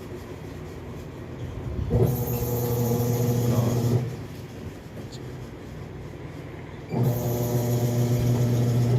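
Washing machine motor humming in on-off runs during agitation: about two seconds on, about three seconds off, then on again. It is a steady electrical hum, and the speaker has noted that the machine made this sound from the start.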